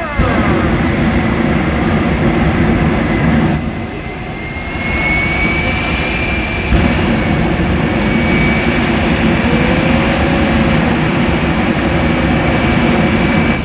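Jet engine on a jet-engine truck running at high power: a steady roar with a thin high turbine whine. The roar eases for a moment about four seconds in, then builds back up.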